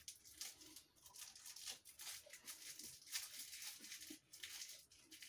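Faint, scattered crunching and crinkling as a crisp candy bar is chewed and handled.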